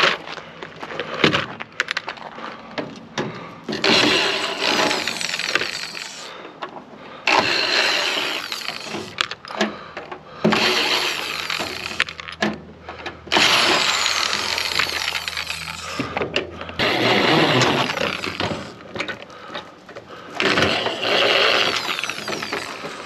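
A microwave oven being dismantled with hand tools: six bouts, each a few seconds long, of metal scraping, prying and breaking, with sharp clicks and knocks between them.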